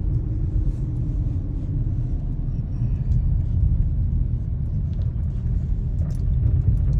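Car driving along with a steady low rumble of road and engine noise.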